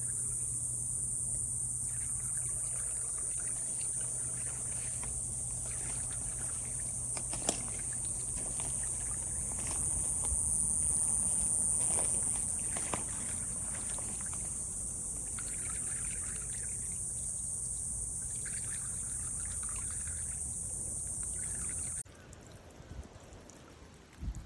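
A small electric fountain pump running, with water trickling over a steady low hum and a constant high-pitched whine. The sound drops away abruptly near the end.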